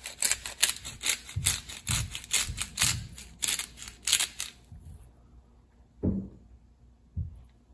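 Hand-twisted pepper seasoning grinder crunching and clicking, about three grinding strokes a second for the first five seconds, then stopping. After it, two dull knocks.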